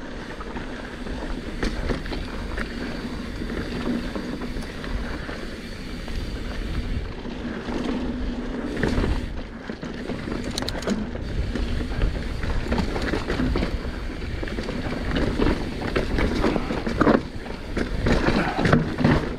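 Mountain bike ridden down a rocky technical trail: wind rumbling on the microphone over the rolling of knobby tyres on dirt and rock, with knocks and rattles as the bike hits rocks, most of them about halfway through and in the last few seconds.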